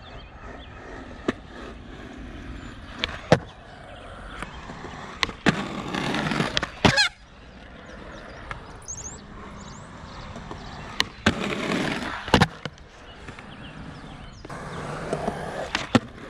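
Skateboard on concrete: wheels rolling with loud scraping stretches, and sharp clacks as the deck and trucks hit the ground and the ledge, several times.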